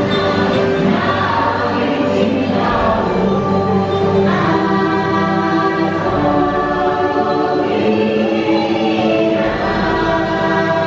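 Music with a choir singing in held chords that change every couple of seconds.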